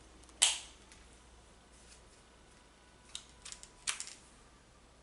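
Plastic clicks from a water flosser being handled: one sharp, loud click about half a second in, then three lighter clicks near the end.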